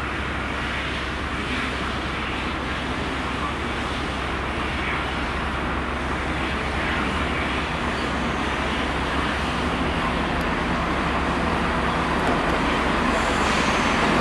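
Class 170 Turbostar diesel multiple unit drawing slowly into the platform, its diesel engines and wheels on the rails growing steadily louder as it comes closer.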